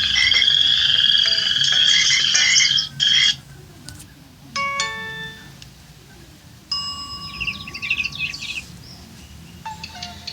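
An LG GW300 phone's speaker playing its built-in ringtones and alert tones one after another. A buzzy, warbling tone stops about three seconds in, followed by a short chime, then a quick run of notes, and a plucked melody begins near the end.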